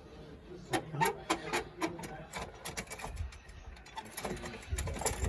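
Metal tyre-changing tools, a car jack and wheel spanner, being worked at a wheel: a run of irregular sharp clicks and knocks, with a few dull thumps near the end.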